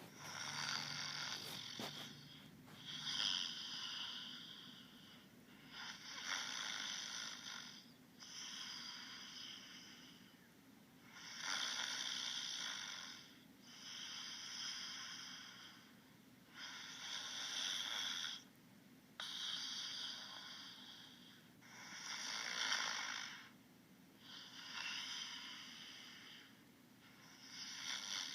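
Snoring: slow, regular breaths, each a breathy rasp of about a second or two, about one every two to three seconds.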